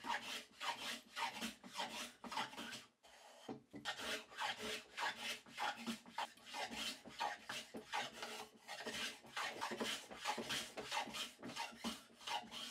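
Metal smoothing plane taking quick, short strokes along the edge of a wooden base piece held in a vise, a rapid run of shaving swishes with a brief pause about three seconds in. It is cleaning off tool marks.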